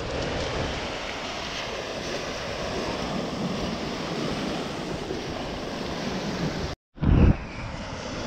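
Surf and sea noise with wind on the microphone, steady throughout. The sound cuts out briefly just before seven seconds in, then a short loud low rumble of wind hits the microphone.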